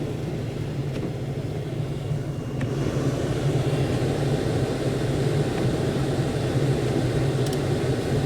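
Steady low rumble of a car driving on a snow-covered road, heard from inside the cabin: engine and tyre noise, a little louder from about three seconds in.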